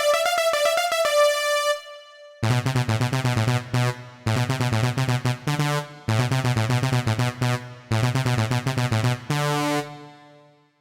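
Synthesizer and keyboard music: a short high melodic phrase, a brief pause, then a repeated phrase over a low bass line, played four times with short breaks between, dying away near the end.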